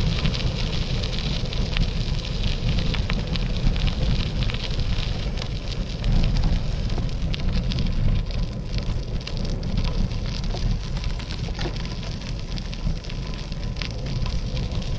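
Wind rumbling over the microphone, with a dense crackle of small clicks throughout.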